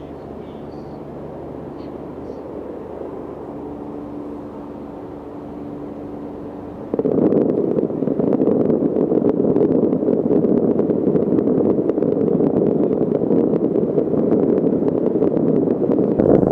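Fireworks going off at a distance: about seven seconds in, a sudden loud, continuous rush of bangs and dense crackling starts and keeps going. Before that there is only a steady low hum with faint held tones.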